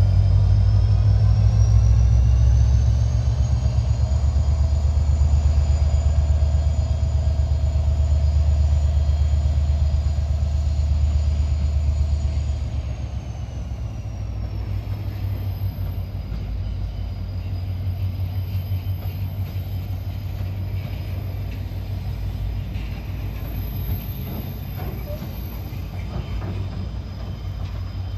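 Passenger train passing: a KiwiRail DFB-class diesel-electric locomotive's engine running loud with a high whine that rises and holds, easing off about 13 seconds in. Then the carriages roll by at a lower, steady level on the rails.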